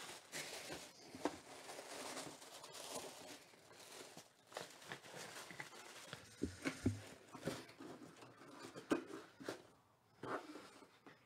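Tissue paper rustling and crinkling as hands push it about inside a cardboard box, with scattered light knocks and taps on the box.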